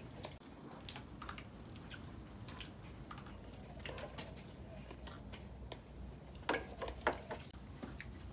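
Tableware clinking during a meal: chopsticks, spoons and small cups tapping against bowls and the table in scattered light clicks, with two louder clinks about six and a half and seven seconds in.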